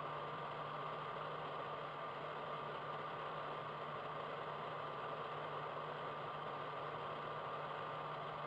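Steady hiss with a low hum and a thin, faint steady tone, unchanging throughout, with no voice or music.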